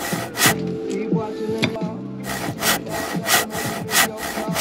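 Knife sawing through food on a cutting board in quick, even back-and-forth strokes, about three a second. It pauses for a couple of seconds early on, then resumes. Background music plays underneath.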